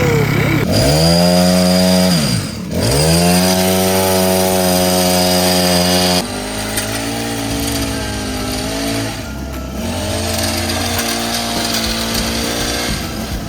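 Toy chainsaw playing its engine sound effect: the pitch dips and climbs back twice in the first three seconds like revving, then holds steady. About six seconds in it switches abruptly to a lower, rougher running sound.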